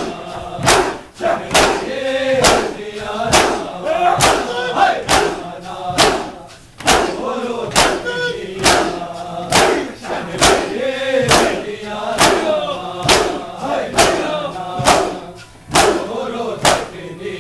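A crowd of men doing matam, beating their chests with open hands in a steady rhythm of about two sharp slaps a second, while chanting a noha together in loud, shouted unison.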